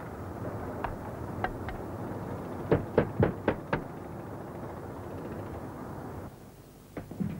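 Hammer knocks on a roof: a few scattered taps, then a quick run of five strikes at about four a second, over steady street traffic noise. The background noise drops away near the end.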